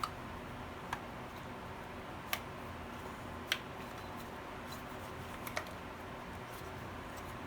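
Several short, sharp plastic clicks and taps, about five spread out, as the plastic cover is fitted onto the housing of a Fiat Stilo's electric door lock actuator, over a faint steady hiss.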